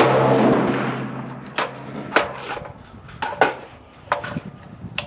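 A single shot from a 6.5 Creedmoor AR-10-pattern semi-automatic rifle: a sharp crack with a long echoing tail lasting about a second and a half, followed by several separate light clicks and knocks.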